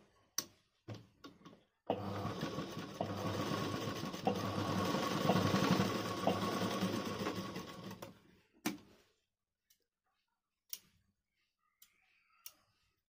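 Sewing machine stitching a zip into a satin garment: it runs steadily for about six seconds, then stops. A few sharp clicks come before the run, and after it come scissor snips as the thread is trimmed.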